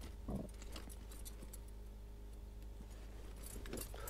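Faint clicks and light rattles of fishing tackle being handled, with a short handling sound near the start, over a low steady hum.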